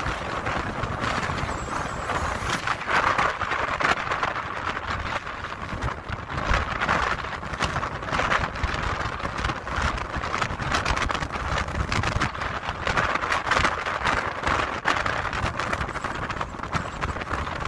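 Storm wind and rain: a continuous rushing noise that swells and eases in gusts, peppered with many small crackles.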